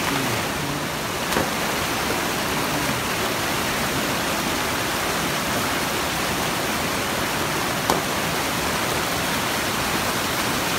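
Steady rush of a rocky mountain stream tumbling in small cascades over boulders, with a single sharp click about eight seconds in.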